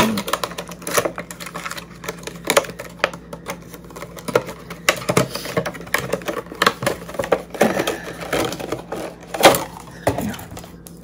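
Irregular clicks, taps and crinkles of a plastic makeup-sponge case and its packaging being handled and opened, with a sharper knock about nine and a half seconds in.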